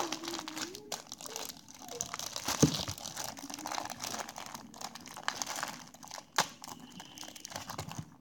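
Plastic packaging crinkling and rustling as a stapled parcel is pulled open by hand, with a few sharp snaps, the loudest about two and a half seconds in.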